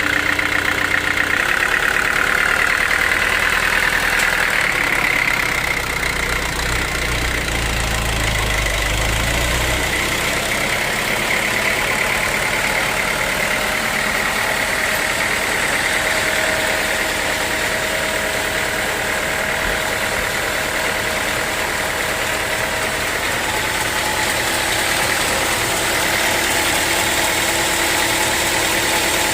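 An engine running steadily, with a deeper low rumble for a few seconds starting about six seconds in.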